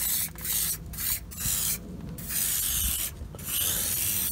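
Aerosol can of zinc weld primer spraying in about six short hissing bursts, the longer ones in the second half.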